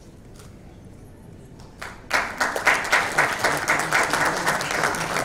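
Audience applause that starts suddenly about two seconds in and keeps going, a dense patter of many hands clapping; before it the room is quiet.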